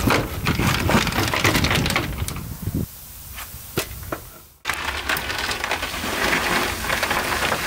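Dry ice pellets crunching and cracking against brittle tar sound deadener on the steel floor as a gloved hand works them, dying away about halfway through. After a brief silence, dry ice is tipped out of a bucket onto the floor pan in a steady, dense crackle.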